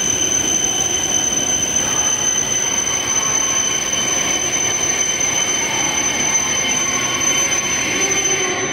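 Shinkansen bullet train running along an underground station platform: a loud, steady rush of rail and car noise with a constant high-pitched whine over it.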